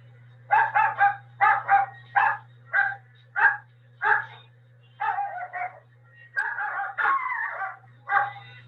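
A dog barking over and over, about a dozen short barks, some in quick runs of two or three, with a couple of longer drawn-out barks near the end. A steady low hum runs underneath.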